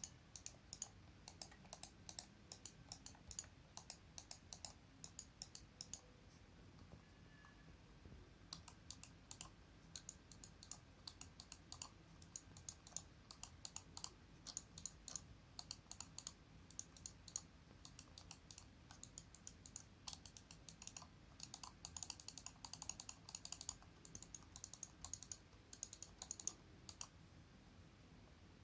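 Razer wireless gaming mouse buttons clicking over and over, in single clicks and quick runs, with a pause of about two seconds about a quarter of the way in.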